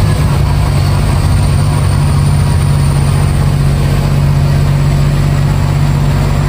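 Truck engine running steadily with a constant low drone.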